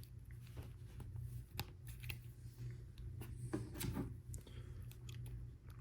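LEGO Technic plastic parts being handled and pressed together: scattered small clicks and rustles, a few a second, over a steady low hum.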